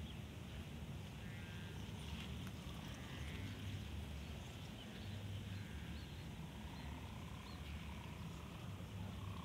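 Low wind rumble on the microphone, with faint short animal calls now and then.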